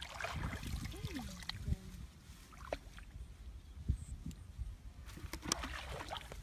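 Wind rumbling and buffeting on the microphone, with leaves and branches rustling and a few short sharp snaps.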